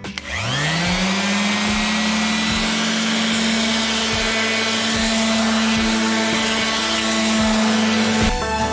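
Corded Ryobi random orbital sander spinning up about a quarter second in and running steadily, a steady motor hum with the hiss of the sanding pad on a flywheel's clutch face, then cutting off shortly before the end. This is a makeshift resurfacing of the flywheel face in place of a machine-shop job.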